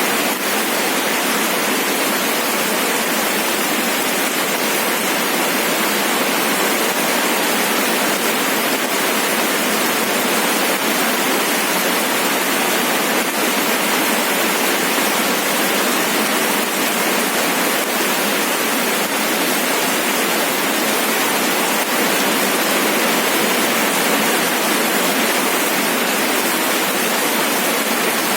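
Steady rain falling: a dense, even hiss with no single drops standing out and no rumble underneath.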